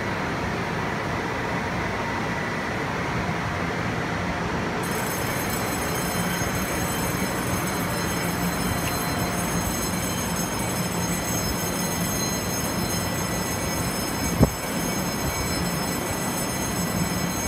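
Taiwan Railways EMU500 electric commuter train standing at the platform with its doors open, its equipment humming steadily. A high whine starts about five seconds in, and a single sharp knock sounds near the end.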